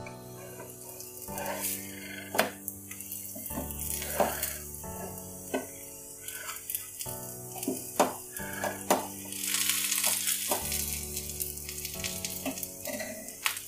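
Bajra rotis shallow-frying on a greased non-stick tawa over low flame, with a steady sizzle. A few sharp clicks come from the metal spatula against the pan as the rotis are turned.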